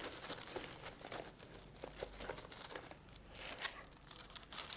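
Faint crinkling of tissue paper as a small wallet is handled in its wrapping and box, with scattered light ticks.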